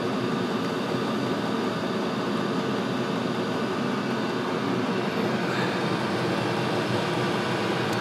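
Diesel heater running, with its combustion blower and burner making a steady, even drone that does not change.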